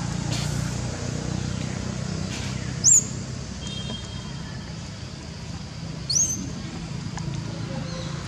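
Steady low hum of an idling or passing engine, with two short, high, rising chirps about three seconds apart.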